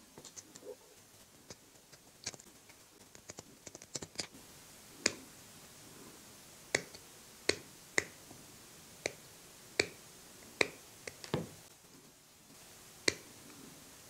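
Hand tin snips cutting a small piece of thin tin sheet: a dozen or so sharp snips at irregular intervals, the louder ones coming about a second apart in the later part.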